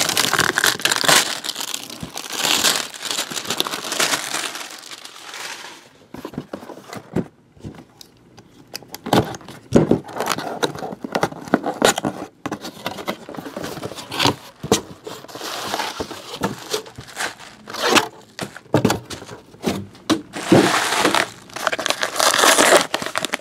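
Plastic shrink wrap and packaging being torn off a sealed trading-card box and crinkled, in irregular bursts with short pauses.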